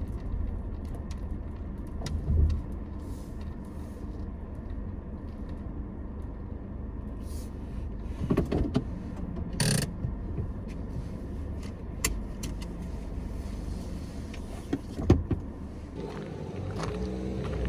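Low, steady rumble of a car moving slowly or idling, with scattered clicks and knocks; the sharpest comes about ten seconds in.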